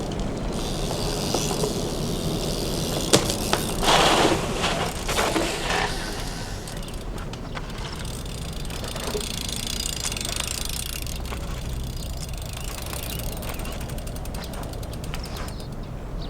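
Bicycle freewheel ratchet ticking as the bike coasts, with a sharp click about three seconds in, a louder clatter soon after, and a run of fast, even ticks near the end.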